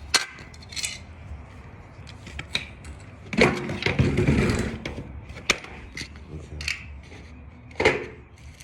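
Scattered clicks and clinks of small tools and hardware being picked up and moved about on a work surface, with a longer rustling scrape about three and a half seconds in.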